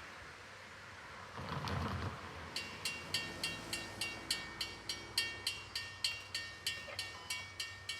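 Railroad grade-crossing warning bell starts ringing about two and a half seconds in, a steady ding about four times a second: the crossing has activated for an approaching train. Just before it there is a brief rushing noise.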